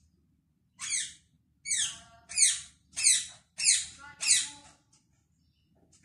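Parrot squawking: a quick run of about six harsh screeches, each falling in pitch, starting about a second in and stopping about a second before the end.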